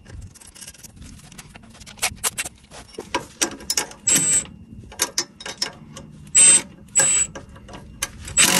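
Hand ratchet and wrench working a 13 mm nut and bolt, clicking in short bursts, with light metal taps in between.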